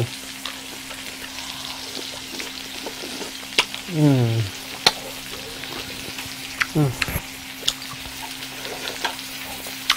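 Shrimp and vegetables sizzling on a hot round griddle over a portable gas stove: a steady frying hiss with scattered sharp pops and clicks. About four seconds in, and briefly again near seven, a short hum falls in pitch.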